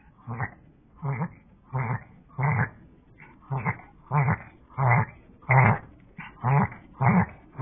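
A Chihuahua–Pomeranian mix dog breathing in a rapid series of short, noisy breaths, about two a second, loudest around the middle. The owner is unsure whether this is a reverse-sneezing episode or hyperventilation; the vet found nothing abnormal.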